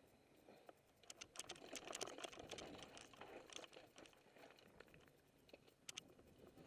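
Faint crunching and clicking of mountain bike tyres rolling over a loose, rocky dirt trail on a descent. There is a dense run of clicks and crunches from about a second in to about four seconds, and a few sharper clicks near six seconds.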